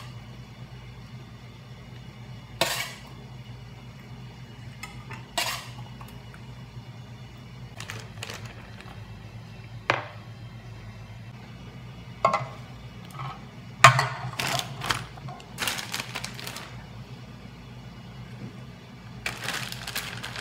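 Kitchen utensils clinking and scraping against cookware in irregular sharp clatters, thickest in a cluster in the middle and again near the end, over a steady low hum.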